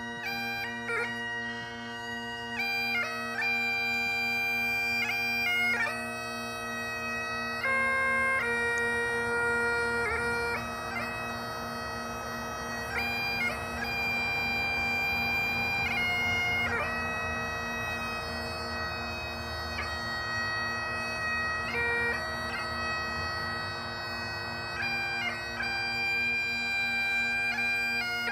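Bagpipes playing a slow melody: the chanter's notes, several held for a few seconds, move over a steady unbroken drone, with quick grace notes flicking between the melody notes.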